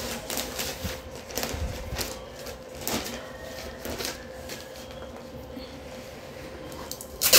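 Slippery gift-wrapping sheet and plastic crinkling and rustling in scattered bursts as it is folded around a gift by hand, with a louder crackle near the end.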